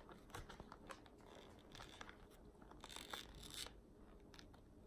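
Faint rubbing and scraping of a plastic goggle lens being worked into the rim groove of a flexible goggle frame, with scattered small clicks and a longer scratchy rub about three seconds in.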